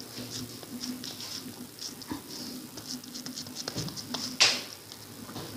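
Wet hands squeezing and patting soft mashed potato and egg mixture into a kabab patty: soft irregular squelches and small clicks, with one louder, sharper sound about four and a half seconds in.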